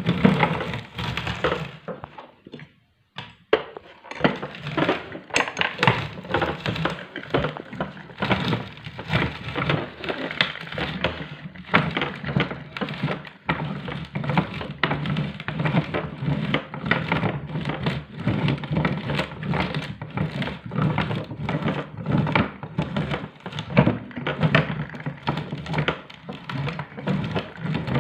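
Electric meat grinder crushing hard-candy lollipops: dense, irregular cracking and crunching over a steady hum, with a short lull about two to three and a half seconds in.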